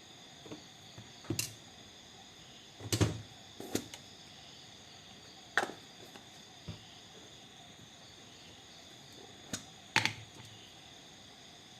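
Irregular sharp clicks and knocks of small hard objects being handled on a workbench, about six in all, the loudest about three seconds in and again near the end, over a steady faint hiss with a thin high tone.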